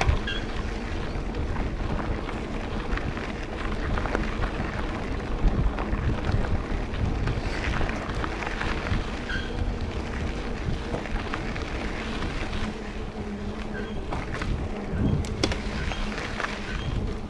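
Steady rush of water at a waterfall, with low rumbling wind noise on the microphone.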